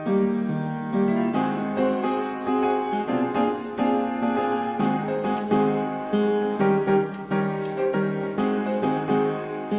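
Background piano music, a flowing run of notes.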